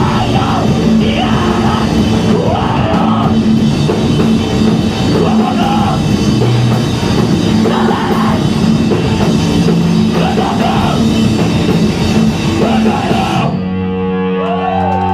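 A band playing loud, heavily distorted music live, with electric guitars, drums and shouted vocals. Near the end the playing stops abruptly, leaving steady tones ringing from the guitar amplifiers.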